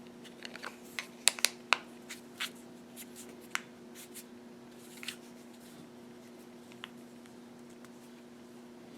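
Plastic back cover of a Blitzwolf GV18 smartwatch being pressed onto the watch body: a string of small sharp clicks and snaps as it clips into place, most of them in the first four seconds, over a faint steady hum.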